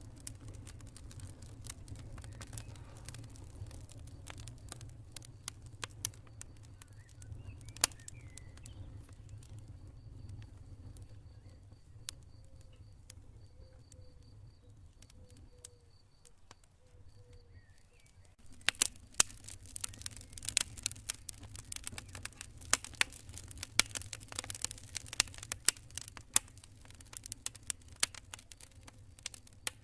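Campfire crackling: scattered sharp pops and snaps over a low rumble, becoming much denser and louder about two-thirds of the way through. A faint, evenly pulsed cricket chirp sounds in the background.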